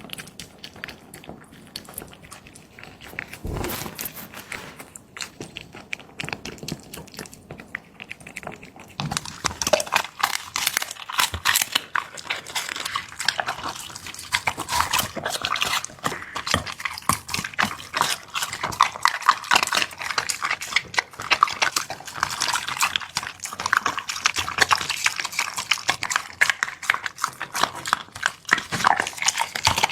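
Dog eating: rapid wet chewing and lapping, sparse at first and then fast and continuous from about nine seconds in.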